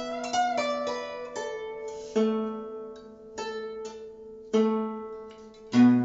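Guzheng played slowly: single plucked notes, each ringing out and fading before the next, with one note bent upward just after the start by pressing the string beside its bridge. A louder, deeper note is struck near the end.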